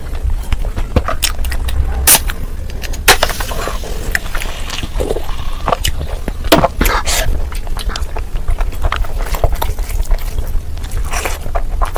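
Close-miked eating: wet chewing and smacking with many irregular sharp mouth clicks and crunches, over a steady low hum.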